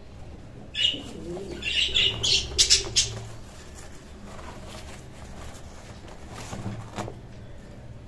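Jacobin pigeon flapping and scuffling as it is handled in a wire cage: a brief flurry about a second in, then a louder bout ending in a few sharp wing-claps near three seconds.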